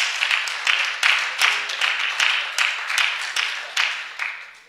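Congregation applauding and clapping, a run of claps that fades out near the end.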